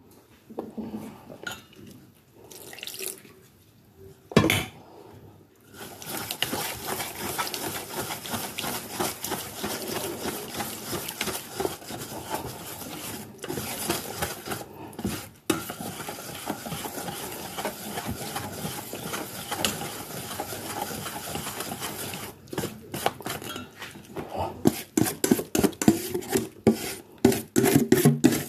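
Wire whisk beating thick batter in a stainless steel bowl, a fast steady clatter of metal on metal. Near the end a fork takes over with louder, separate scraping strokes. A single sharp knock about four and a half seconds in is the loudest sound.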